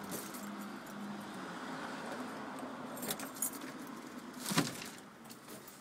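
Keys jangling and a key working in a front-door knob lock, with a few small clicks about three seconds in and a sharper clack of the lock about four and a half seconds in. The steady noise of a passing car runs underneath for the first four seconds or so.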